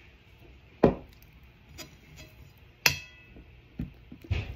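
Metal spoon clinking against a glass jar and a ceramic plate while scooping out shrimp paste: four short sharp clinks, the one about three seconds in ringing briefly.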